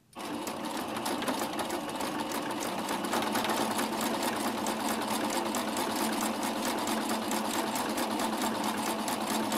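Singer Starlet 6680 computerized home sewing machine running steadily, its needle going up and down in rapid, even strokes as it sews a decorative stretch stitch that feeds the fabric forward and back.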